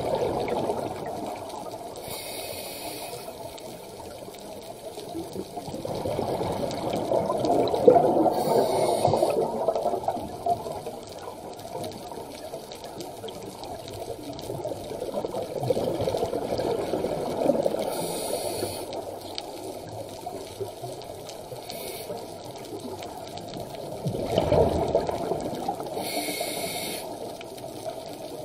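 Scuba breathing through a regulator underwater. Bubbling exhalations swell and fade every several seconds, with short hisses of the demand valve between them.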